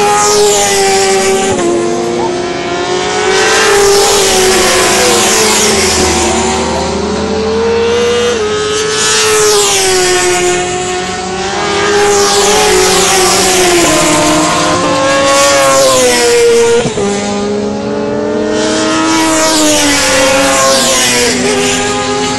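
Racing motorcycles passing one after another at high revs, several passes, with the engine pitch rising and falling as each bike goes by and shifts gear.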